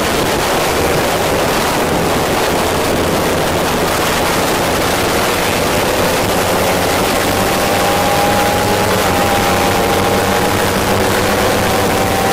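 Onboard sound of a Kawasaki Ninja 300 race bike: strong wind rush over the camera mixed with its parallel-twin engine. The engine note climbs slowly through the second half as the bike accelerates out of a corner onto the straight.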